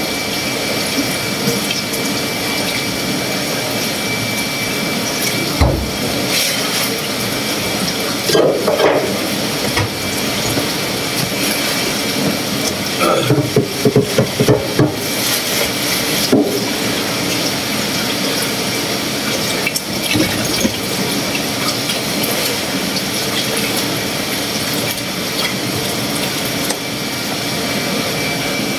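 Washing up at a stainless-steel sink: water running in the basin with scattered clatters and knocks, over a steady hiss.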